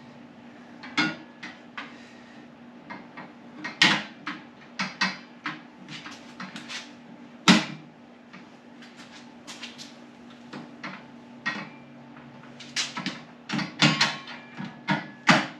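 Irregular knocks, clicks and clunks of metal hardware being handled as a luggage rack is fitted back onto a motorcycle's sissy bar. The sharpest knock comes about halfway through, with a busier cluster near the end, over a steady low hum.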